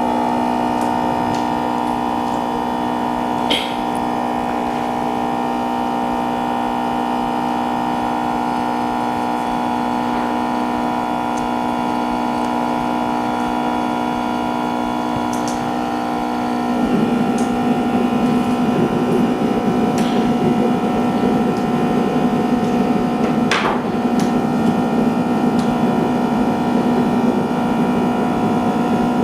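Steady machine hum made of several even tones. About seventeen seconds in it turns rougher and slightly louder, and a few faint clicks break in now and then.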